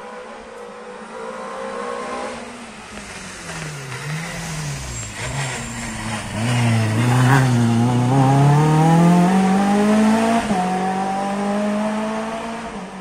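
Rally car engine rounding a hairpin. The revs fall and rise a few times as the car slows for the bend, then the car accelerates out in a low gear. The engine note climbs steadily and is loudest for about three seconds, then breaks at a gear change about ten seconds in and runs on steadier as the car moves away.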